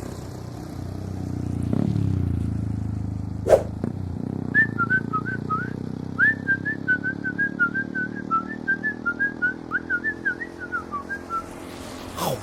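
A long run of short, high whistled chirps, about three to four a second, each note gliding a little, over a low steady hum, after a quick whoosh.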